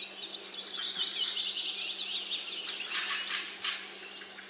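Woodland birdsong: small birds chirping and twittering continuously in quick overlapping phrases, over a steady low hum.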